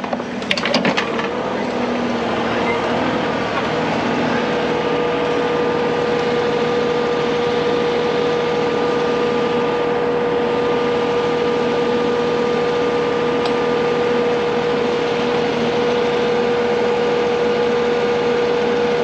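Heavy-equipment diesel engine running steadily under hydraulic load, with a steady whine that comes in about four seconds in and holds.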